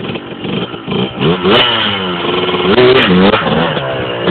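Yamaha Blaster's single-cylinder two-stroke engine revving hard in repeated bursts, its pitch rising and falling as the throttle is worked to lift the front wheels into a wheelie.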